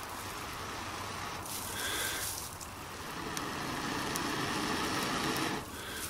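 Long breathy blows into a bundle of slightly moist pine straw to coax a charcloth ember into flame, broken by short pauses for breath about a second and a half in and near the end.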